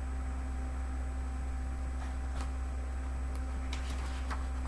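Steady low electrical hum under faint paper rustles and small clicks as a large hardcover picture book is handled and its page turned, the rustling growing busier over the last couple of seconds.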